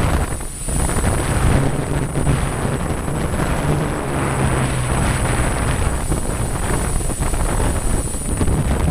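A 680 mm six-rotor multicopter's motors and propellers droning steadily in flight, with gusty wind buffeting underneath and a steady high-pitched whine throughout.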